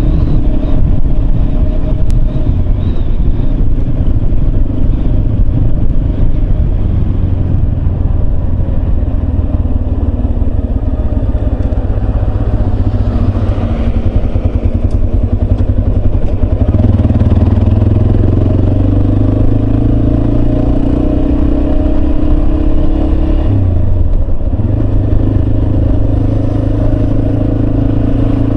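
Yamaha Serow 250's single-cylinder four-stroke engine running steadily while riding. The engine note climbs slowly a little past the middle, then dips briefly about three quarters of the way in before evening out again.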